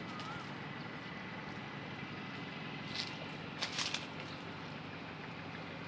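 Steady outdoor background noise, with a short wavering chirp right at the start and a few brief sharp clicks about three to four seconds in.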